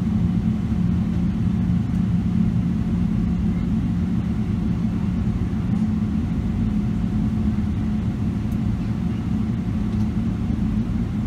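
Steady low hum inside a Boeing 777 airliner's cabin while it stands still before taxiing, with a constant drone and no change in pitch or level.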